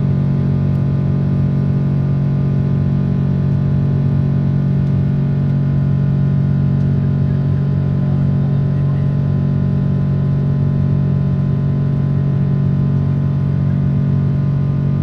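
Steady, loud drone of a Boeing 777-300's jet engines and airflow heard inside the passenger cabin, a constant hum made of several steady tones that does not change in pitch or level.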